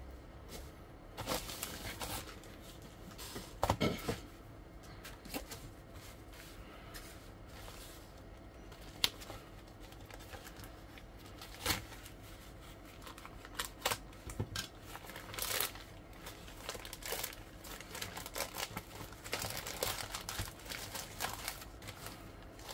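Plastic courier mailer bags being handled and torn open: intermittent crinkling of the plastic film with sharper tearing strokes, and the mailer slit with a snap-off utility knife.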